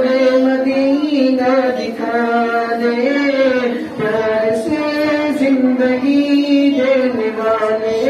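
A man singing a naat unaccompanied into a handheld microphone, drawing out long held notes that step up and down in pitch, with no pause for breath.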